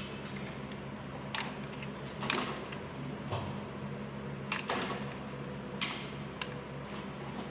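Room noise: a steady low hum with a handful of faint, scattered clicks and taps.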